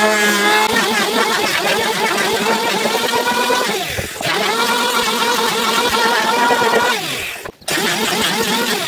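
Electric hand planer running and cutting along a toona wood plank, its motor whine sagging in pitch and recovering about four seconds in as it takes load. It sags again and briefly drops out near the end.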